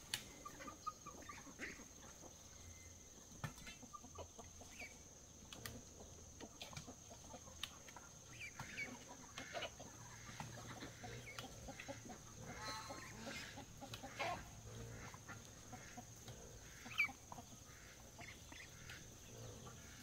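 Chickens clucking now and then, faint, with scattered short clicks and knocks and one louder call about 17 seconds in.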